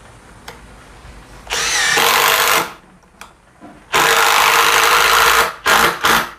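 Ryobi Kyocera BID10XR brushless cordless impact driver driving a screw into hard wood in bursts. A short run starts with a rising pitch as it spins up, then comes a longer loud run of about a second and a half, then two quick blips of the trigger near the end.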